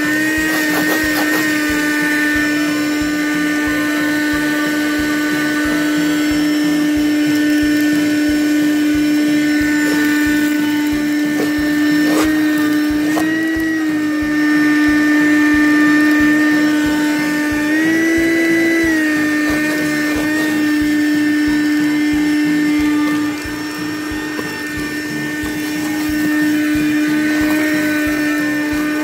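Small handheld cordless car vacuum running with a steady high motor whine, its pitch rising briefly twice. There is a sharp knock about twelve seconds in.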